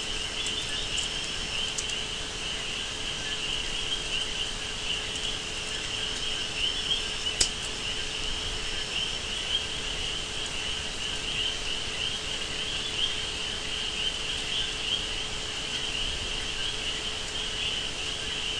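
Crickets chirping steadily in the background, with a faint steady hum underneath and a single sharp click about seven seconds in.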